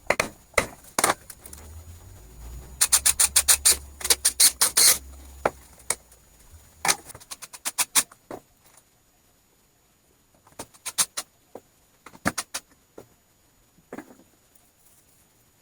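Sharp taps and knocks in quick runs of several a second, thinning out in the second half, with a low hum underneath in the first few seconds.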